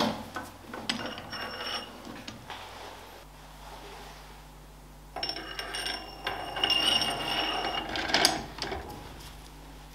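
Metallic clicks, scrapes and rattles as a steel shaft is handled and fitted into a three-jaw chuck, the chuck body turned by hand to close its jaws. The densest clattering, with ringing metal, comes from about five seconds in until near the end.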